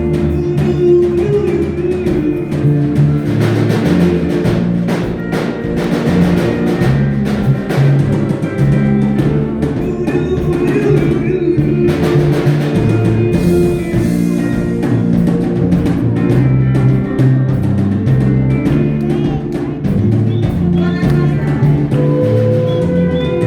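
Live band music with drums, bass and guitar, with some singing, loud and continuous.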